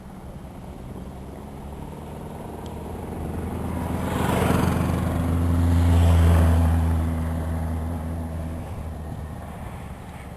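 A car driving past close by: its engine hum and tyre noise grow louder, peak about six seconds in, then fade away.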